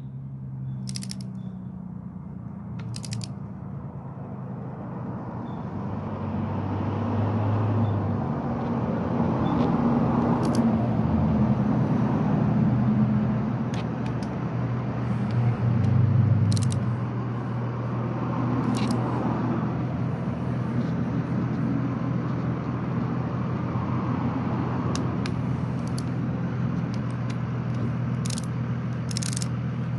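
Steady hum of a motor vehicle running, swelling and easing over several seconds. Scattered sharp single clicks from a hand wrench are heard over it as the rocker-rail bolts on a cylinder head are tightened toward 20 foot-pounds.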